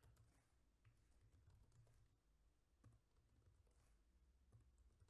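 Faint, scattered keystrokes on a computer keyboard.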